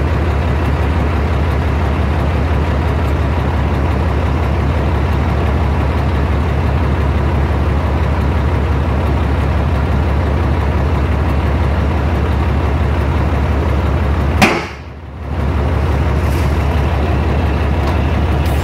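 Tri-axle dump truck's diesel engine running steadily under the raised, emptying bed. Near the end a sudden sharp burst, then the sound drops away for about a second before the engine comes back.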